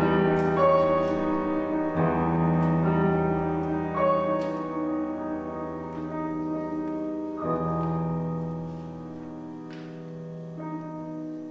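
Grand piano playing chords alone, a new chord struck about every two seconds and left to ring, fading toward the end. Faint clicks of wind instruments being put down and picked up during an instrument change.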